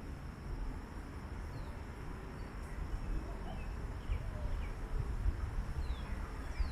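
Background ambience between burps: a steady low rumble, with a few faint short falling chirps and a thin steady high-pitched hum.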